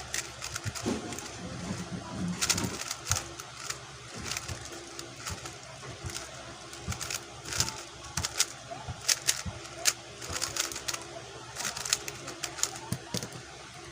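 QiYi X-Man Tornado V2 speedcube being turned fast during a timed solve: rapid, irregular clicking of the plastic layers, in quick clusters with short pauses between them.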